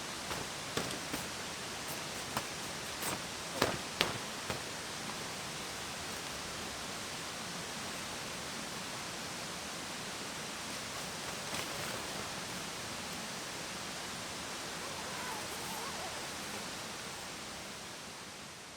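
A steady, even hiss with a few sharp clicks in the first five seconds; it fades out near the end.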